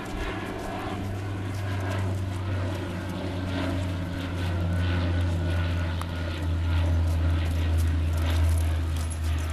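A steady low engine drone that swells a little toward the end, with a horse's hooves walking on dirt beneath it.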